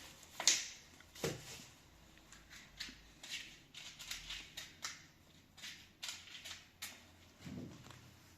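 Light, irregular clicks and knocks, two or three a second, with two louder knocks in the first second and a half: hard objects being handled.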